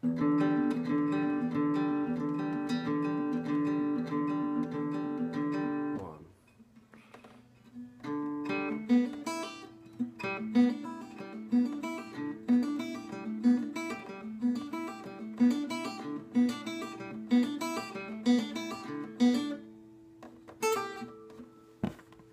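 Solo acoustic guitar played fingerstyle: a fast repeated plucked pattern rings for about six seconds and stops, then after a short pause single plucked notes and small clusters come at uneven intervals, thinning out near the end.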